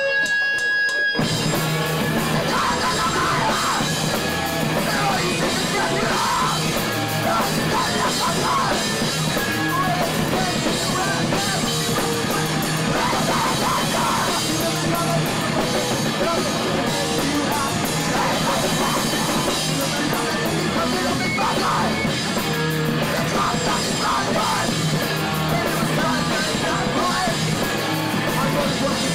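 A punk band playing live, loud and fast: distorted electric guitars, bass guitar and a drum kit with cymbals, kicking in about a second in.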